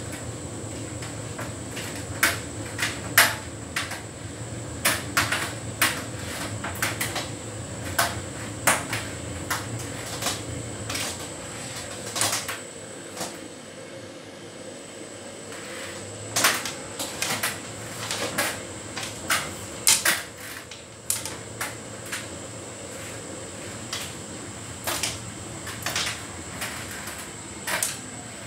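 Hotpoint heat pump tumble dryer running a synthetics cycle: a steady mechanical hum with a faint high whine, broken by frequent irregular clicks and knocks as the load tumbles in the drum.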